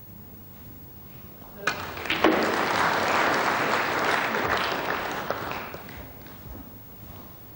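Audience applause breaks out suddenly about one and a half seconds in and dies away around six seconds in.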